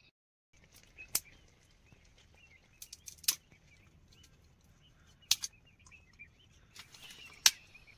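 Dry branches snapping as firewood is broken up: four sharp cracks about two seconds apart, with smaller cracks and crackles between them.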